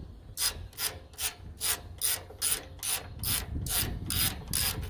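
Hand socket ratchet worked back and forth in short quick strokes on a nut, its pawl ratcheting in eleven short bursts, a little over two a second.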